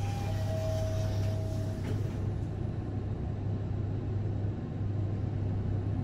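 Steady low hum and rumble of a Mitsubishi lift, with a faint thin whine in the first couple of seconds.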